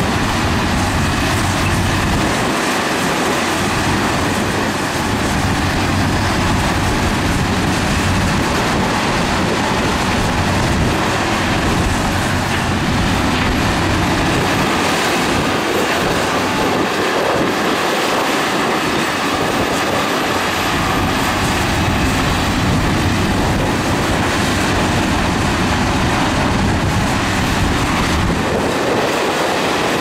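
Heavy tracked construction machinery at work: diesel engines running with steel tracks grinding along, a steady, loud mechanical din.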